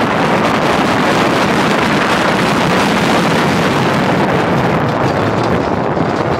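Steady rush of wind buffeting the microphone on a moving suspended roller coaster, mixed with the train's rumble along the track.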